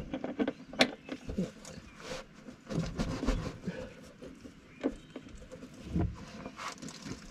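Scattered clicks and knocks of a socket and short extension being worked onto an engine oil pan's drain plug, with a sharp click just under a second in and a dull knock about six seconds in as the socket goes onto the plug.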